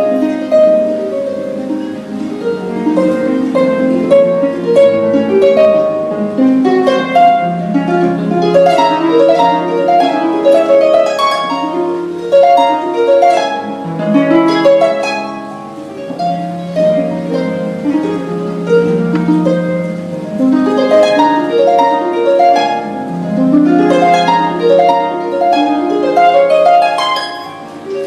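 Lyon & Healy Style 85 CG concert grand pedal harp played solo: flowing arpeggios and runs of plucked notes that ring on and overlap, sweeping up and down the range.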